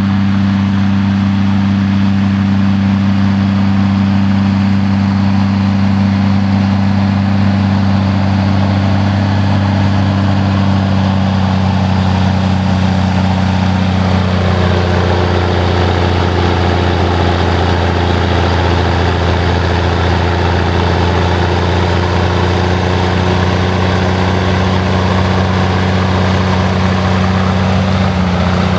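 Diesel engine of a Ford FW-60 articulated four-wheel-drive tractor running steadily under load as it pulls a cultivator through ploughed soil: a loud, even, deep drone.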